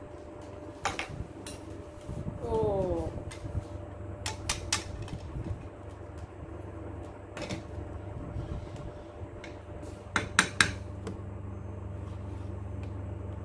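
Alexandrine parakeet moving about and playing on a plastic surface: scattered sharp clicks and knocks, with a quick cluster of louder knocks about ten seconds in, and one short falling call about two and a half seconds in. A steady low fan hum runs underneath.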